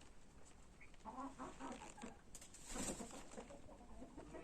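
Chickens clucking faintly in short runs, about a second in and again near the end, with a brief rush of noise in the middle.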